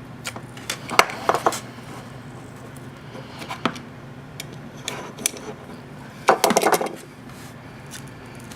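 Pry tool clicking and scraping against the edge of a Samsung Galaxy Note 8's back glass as it is worked around the heated adhesive: irregular sharp taps, with a closer run of scraping clicks a little past six seconds in.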